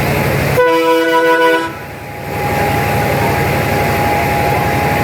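A vehicle horn honks once for about a second, starting just after the beginning, over a steady background of vehicle noise.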